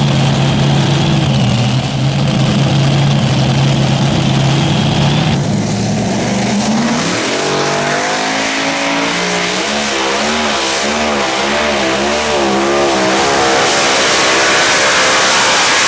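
Multi-engine modified pulling tractor's supercharged V8s, running at a steady low pitch at first. About seven seconds in, the revs climb and waver up and down as the tractor pulls away, building to a loud, rough full-throttle run near the end.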